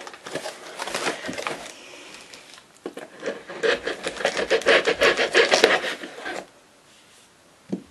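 Hands rubbing and scraping along a small cardboard box while working at it to get it open, a scratchy cardboard rubbing that is loudest from about the middle and stops about a second and a half before the end.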